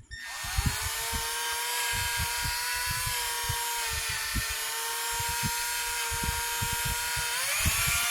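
Small electric drill running steadily, drilling out the rivet that holds a Hot Wheels die-cast car's base on, with scattered low knocks as the bit works the metal. Its whine steps up in pitch near the end as it speeds up.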